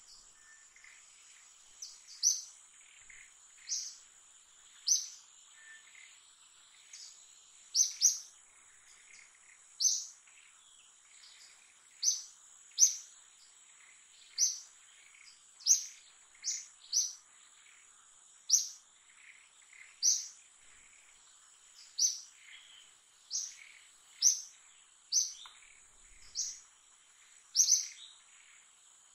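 A bird giving sharp, high chirps, one every second or two, over a steady high-pitched insect drone.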